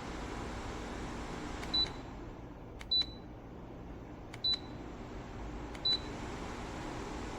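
Dreo tower fan beeping four times, short high beeps about a second and a half apart as its settings are changed. Underneath is the fan's steady airflow hiss, which eases off in the middle and then picks up again.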